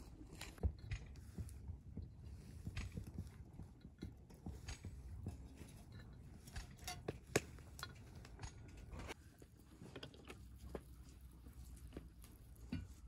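Hands rolling and braiding dough strands on a board: scattered soft taps and clicks of fingers and nails against the board, over a faint low rumble.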